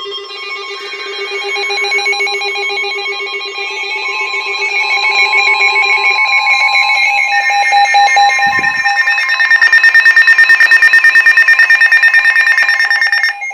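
Emergency alert tones, several sounding at once and joining in one after another, growing louder, with a fast pulsing alarm over the last few seconds. They cut off suddenly near the end, just before a severe thunderstorm warning is read.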